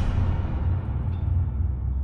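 Channel intro music sting: a deep, low rumble, with its brighter upper sound fading away.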